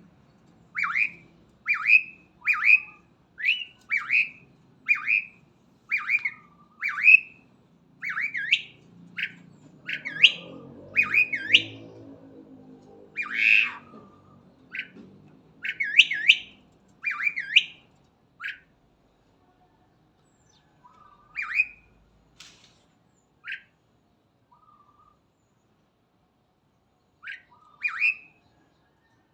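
Jalak (starling) calling energetically: short, harsh, squawking notes about once a second, thinning to a few scattered calls over the last ten seconds. A faint low rumble sits under the calls midway.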